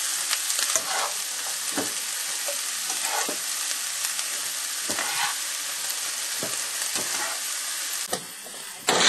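Chopped onion, tomato, cashews and garlic sizzling in hot oil in a non-stick frying pan, with a spoon scraping and stirring through the mixture about once a second as it is scooped out. The sizzle drops away about eight seconds in, and a louder burst of noise sets in at the very end.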